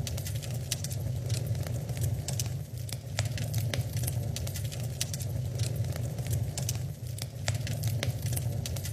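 Wood fire in an open fireplace crackling, with many sharp pops and snaps over a steady low rumble of the flames.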